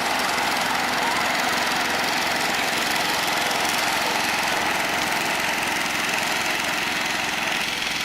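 Lawn mower's small engine running steadily at a constant speed.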